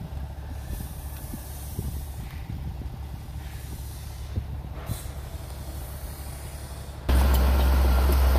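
Heavy diesel earthmoving machinery running with a steady low hum, broken by a few short bursts of hiss. About seven seconds in, it jumps abruptly to a much louder, closer engine.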